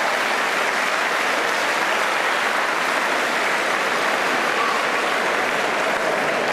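Crowd applauding steadily, a dense, even clapping that does not let up.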